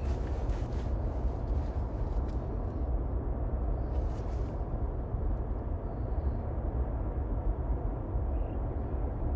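Steady low rumbling background noise, with a few faint short clicks in the first half.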